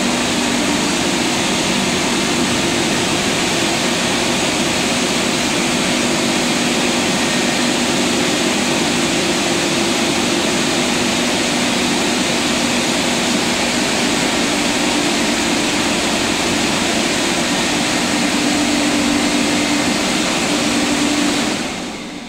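Touchless car wash drying blowers running: a steady rush of air with a low hum, shutting off and winding down near the end.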